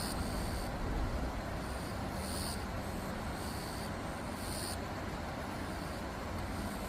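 Steady outdoor background noise dominated by a low rumble, with a faint high-pitched sound repeating about every two seconds.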